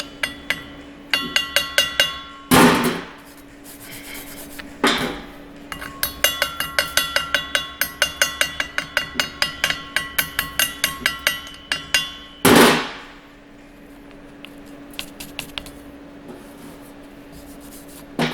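A hammer tapping on metal that rings out, in runs of quick strikes about three to four a second. Three short bursts of rushing noise come between the runs. A steady low hum runs underneath.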